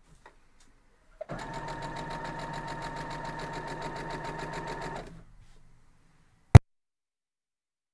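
Electric sewing machine stitching a seam at a steady speed for about four seconds, a fast even run of stitches, then stopping. A single loud, sharp click comes about a second and a half after it stops.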